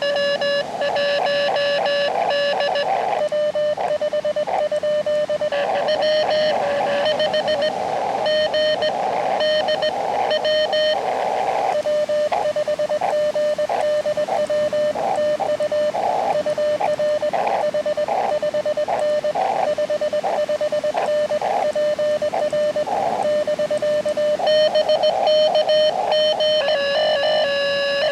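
Morse code (CW) from an Elecraft KX2 transceiver's speaker: a steady tone of about 600 Hz keyed on and off in dits and dahs, with fainter higher tones also keyed in places, over continuous band hiss from the receiver.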